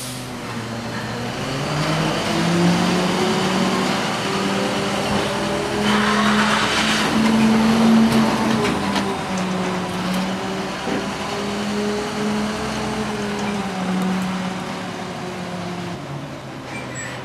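Diesel engine of a CCC/Heil 5000 rear-loader garbage truck pulling away, its pitch rising and falling several times as it gathers speed, with a brief hiss about six seconds in.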